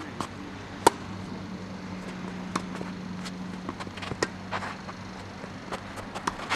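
Tennis rally: rackets striking the ball and the ball bouncing, the loudest and sharpest hit about a second in, with fainter hits and bounces every second or so after. A steady low hum runs underneath and fades about halfway through.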